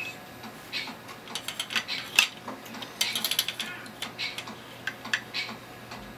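Hard plastic Duplo bricks and ramp pieces clicking and clattering as a child handles and adjusts a brick-built ball run, with a quick rattling run of clicks about halfway through.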